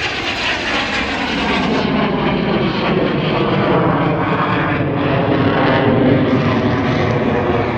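BAC Strikemaster jet trainer's single Rolls-Royce Viper turbojet flying past. Its pitch falls over the first two seconds, and the noise swells to its loudest about six seconds in.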